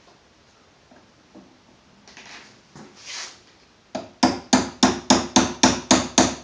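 Small hammer tapping a punch in a quick, even run of light metallic strikes, about three or four a second, starting about four seconds in: driving the bolt-catch roll pin into an AR-15 lower receiver. A few faint handling clicks come before the taps.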